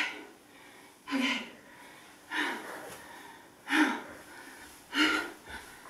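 A person's loud, breathy gasps, five of them, about one every second and a quarter.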